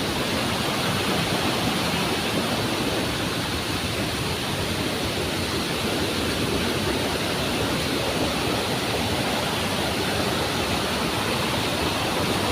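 Steady, even rush of water from the Agua Azul cascades.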